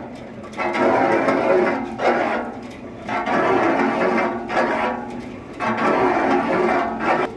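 Background music: melodic phrases of a couple of seconds each, separated by short pauses.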